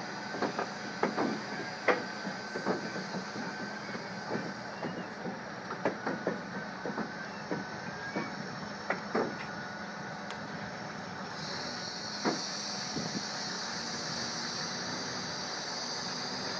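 Union Pacific 4014 Big Boy 4-8-8-4 steam locomotive rolling slowly while being towed dead along temporary panel track. Its wheels and running gear give irregular clanks and knocks, with a thin squeal coming and going over the first twelve seconds or so. A high hiss grows louder about eleven seconds in.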